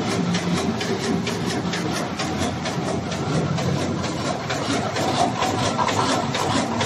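Automatic paper carton erecting machine running: an even, rapid mechanical clatter of several strokes a second over a steady machine hum.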